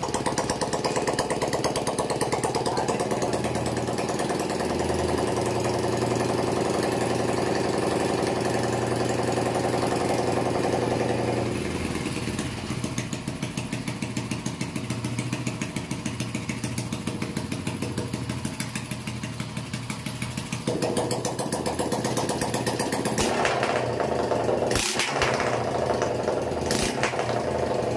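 Hero HF Deluxe motorcycle's single-cylinder four-stroke engine running with TT two-stroke oil in its crankcase, to flush out the old dirt. The note drops about 12 seconds in, then rises and grows louder as the throttle is opened from about 23 seconds on.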